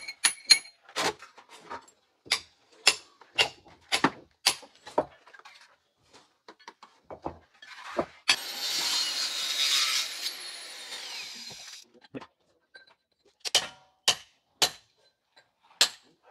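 Building work on cement interlock bricks: a run of sharp knocks, then a power tool runs for about four seconds, then a few hammer blows on a chisel splitting a brick.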